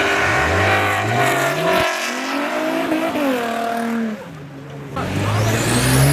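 Performance car engines revving hard as cars accelerate away: the pitch climbs, breaks at a gear change about two seconds in, then falls away as the car passes. About five seconds in, another car starts accelerating.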